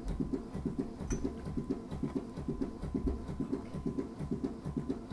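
Total artificial heart pumping, driven by its battery-powered backpack unit: an even, rapid rhythm of pulsing beats that repeats without a break.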